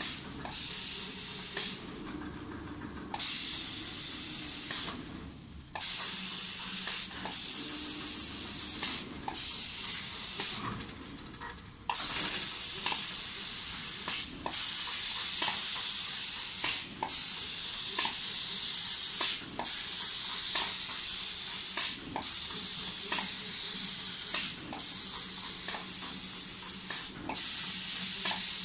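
Spray gun of an automatic spray painting machine hissing as it sprays wooden cabinet doors, cutting off for a moment at the end of each pass, about every two and a half seconds in the second half. A faint low machine hum runs beneath.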